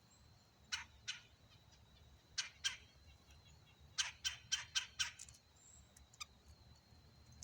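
Bird calls: short sharp notes, two pairs and then a quick run of about five in a row, with a single note near the end.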